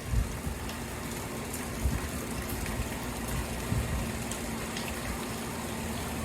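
Steady rush of storm rainwater falling and running, with a few faint drip ticks.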